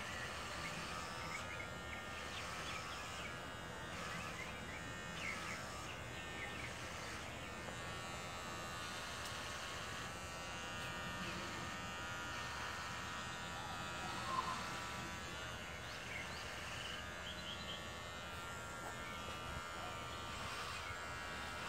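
Electric hair clippers buzzing steadily as they shave long hair off a man's head.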